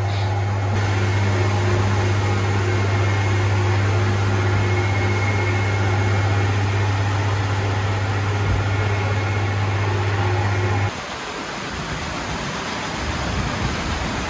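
Steady low machine hum with a few steady higher tones, cutting off suddenly about eleven seconds in and leaving a quieter steady noise.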